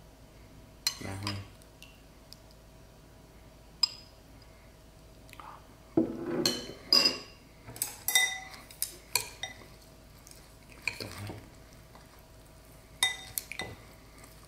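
Metal spoon and utensils clinking and tapping against a ceramic bowl while a bowl of grilled beef is dressed with sauce and topped with rice noodles: scattered single clinks, some ringing briefly, with a busier stretch of handling about six to nine seconds in.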